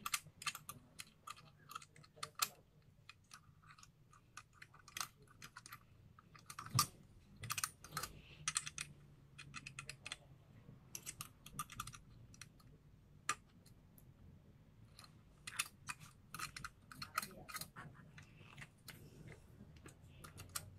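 Small metal spanner working the mounting nuts of a Cooler Master MasterAir G100M CPU cooler on a motherboard: light irregular clicks and taps of metal against metal and hardware.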